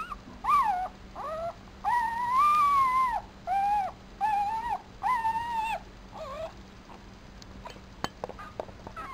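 Four-day-old papillon puppy crying: a string of about seven high squealing cries, each rising and falling in pitch, the longest about two seconds in. After about six and a half seconds only faint clicks remain.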